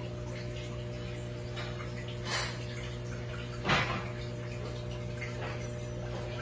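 Aquarium filter or pump running: a steady low hum with water trickling, and two brief louder rushes of water noise about two and a half and nearly four seconds in, the second louder.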